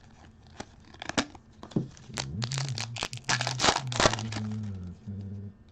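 Foil trading-card pack crinkling and tearing as it is ripped open by hand, with quick crackles and rips, and a low steady hum underneath from about two seconds in.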